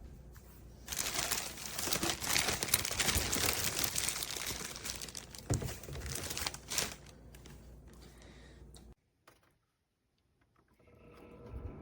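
Crinkling and crumpling, with many small crackles, for about six seconds; it then fades and stops. Near the end a low steady hum begins.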